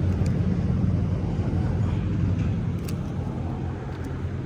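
Steady low rumble with a hum in it, easing slightly toward the end, with a few faint clicks.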